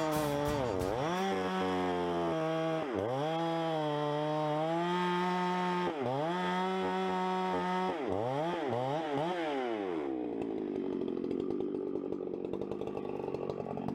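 Chainsaw on an Alaskan chainsaw mill running at high revs, its engine speed dipping and recovering several times and warbling up and down quickly near the end. About ten seconds in it gives way to a lower, steadier sound.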